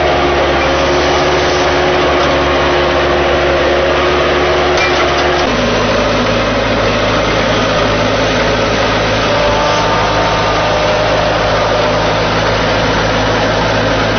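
Skid steer loader engine running steadily under work, with its pitch shifting abruptly about five and a half seconds in.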